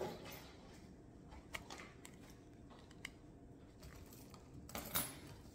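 Faint rustling and small ticks of a folded sheet of lined notepaper being held and handled, with a slightly louder rustle near the end.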